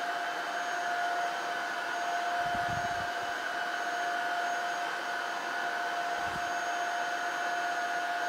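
Tineco Floor One S7 Steam cordless wet-dry vacuum running in steam mode: a steady whine from its suction motor over a constant rushing of air. Two soft low thuds come about two and a half and six seconds in.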